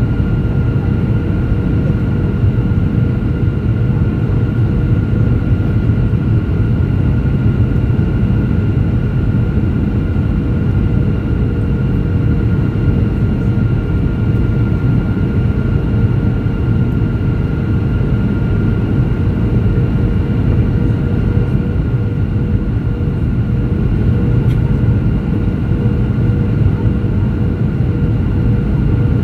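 Cabin noise of a Boeing 737-700 descending on approach, heard from a seat beside the wing: the steady low rumble of its CFM56-7B engines and the rushing air, with a thin steady whine on top.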